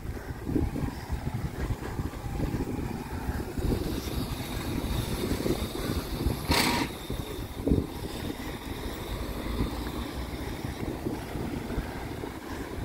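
Wind buffeting the microphone and road rumble while riding a bicycle uphill along a street, with a short hiss about six and a half seconds in.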